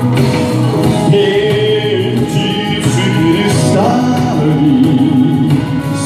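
Live band music: a man singing held notes over keyboard accompaniment, with congas played by hand.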